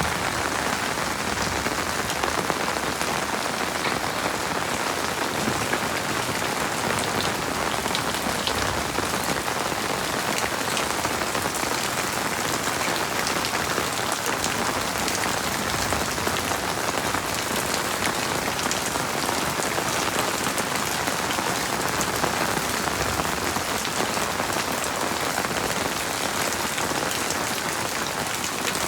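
Heavy rain falling steadily, an even hiss with scattered sharp ticks of individual drops.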